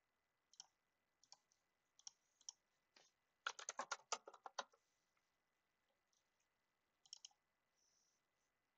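Faint computer keyboard typing and mouse clicks. Single clicks come every half second or so at first, then a quick run of keystrokes about three and a half seconds in, then a few more clicks near the end.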